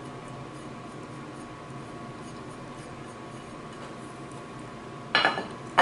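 Fingers lightly scraping powdered spices off a plate into a food processor bowl, a faint rubbing over a steady low hum, then a sudden loud clatter about five seconds in.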